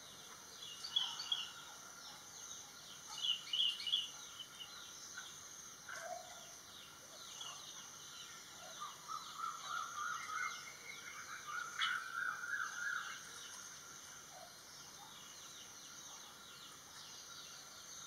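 Small birds calling: scattered short high chirps, with a run of lower chattering notes from about nine to thirteen seconds in.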